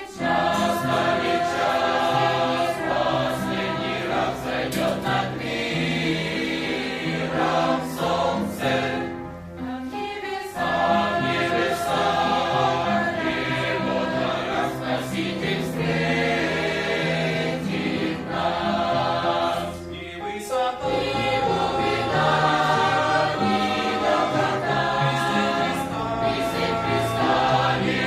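A church youth choir singing a Russian Christian song in several voices, in long phrases with short pauses between phrases about ten and twenty seconds in.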